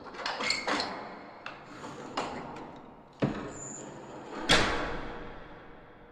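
Horror door sound effect: a rapid run of knocks and rattling clicks, a thud, a brief high squeak, then a heavy boom about four and a half seconds in that dies away in a long echo.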